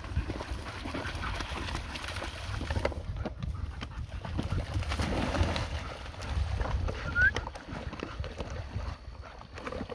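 Dogs wading and splashing in shallow lake water at the shore, under a ragged low rumble of wind on the microphone. A short rising chirp comes about seven seconds in.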